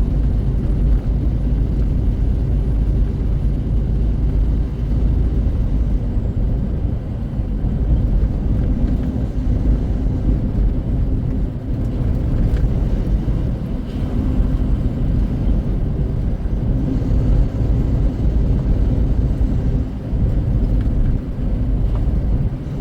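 Steady low engine and road rumble inside a semi truck's cab while cruising at highway speed.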